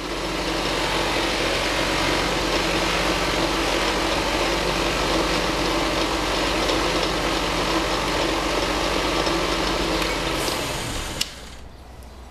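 Polishing machine running at high speed, its new rouge-charged buffer wheel polishing a combination-lock dial ring: a steady whirring rush with a low hum and a steady tone under it. The noise drops sharply about eleven seconds in.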